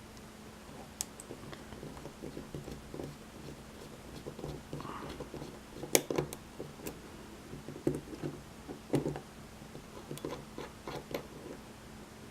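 Small pry bar scraping and clicking against the crimped cap of a lock cylinder as it is levered off: scattered taps and scrapes, sharpest about six and nine seconds in.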